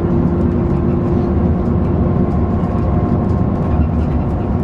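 Steady engine and road rumble heard from inside a moving bus, with a constant drone of several fixed hum tones and faint light rattles.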